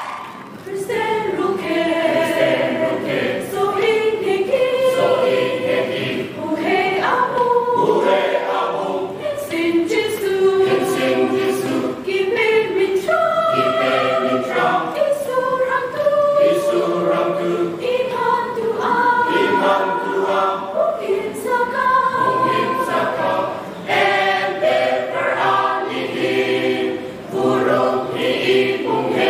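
Mixed choir of men and women singing a hymn a cappella in several parts, the voices holding and moving between chords.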